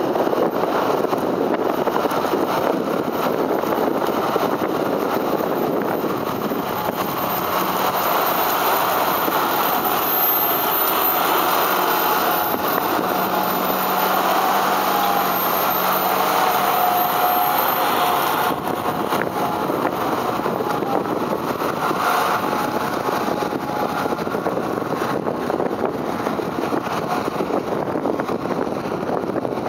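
Fendt 826 Vario tractor's diesel engine running steadily under load while pulling a tillage implement through the soil. Its note grows clearer as it passes close about halfway through, then fades as it draws away.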